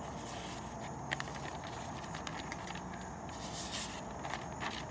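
A knife blade slicing through a hand-held sheet of paper, with soft paper rustles and a few faint ticks over a steady background hiss. It is a paper-cutting test of the factory edge, which turns out sharp, but not razor sharp.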